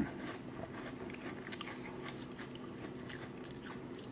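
A person chewing a mouthful of Oreo O's cereal in milk, faint, with a few soft crunches scattered through it.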